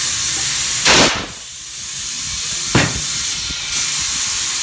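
Loud, steady hiss of rushing air, with a short louder burst about a second in and another near three seconds.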